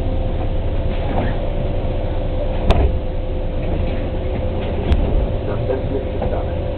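City bus idling at a stop: a steady low engine drone with a thin, steady whine, broken by two sharp knocks about three and five seconds in.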